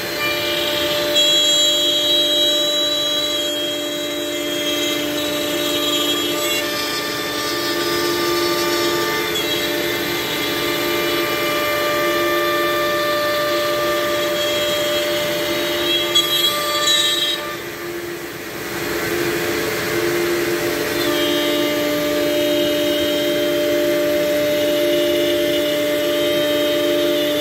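CNC router spindle running with a steady high whine while its end mill cuts a shelf-brace profile into a wooden board, the cutting noise rising and falling with the load. About 17 seconds in the pitch glides and the whine partly drops away for a couple of seconds, then the full cutting sound resumes as the bit works on a second profile.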